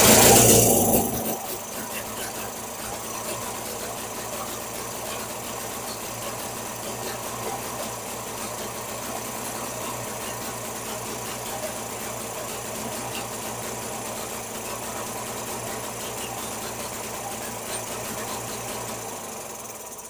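Small twin-cylinder garden-tractor engine firing up on the starter and then running steadily at idle. It is loud for the first second as it catches, then settles to an even run. This is its first start after standing for 12 months, on fresh oil and with the carburettor not yet adjusted.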